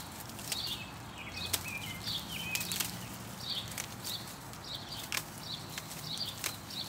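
Dry, gone-to-seed arugula plants rustling and cracking as they are handled and pulled up, with sharp scattered snaps that are the loudest sounds. Short bird chirps repeat throughout in the background.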